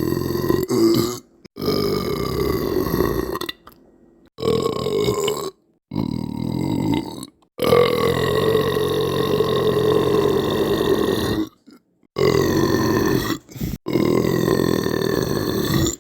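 A string of long, drawn-out human belches, about seven of them, each held at a fairly steady pitch for one to four seconds. They are separated by abrupt, dead-silent gaps.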